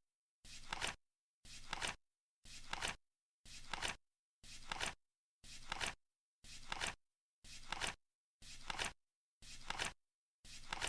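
Flip clock cards turning over once a second, each flip a half-second rustle that ends in a sharp click, with dead silence in between.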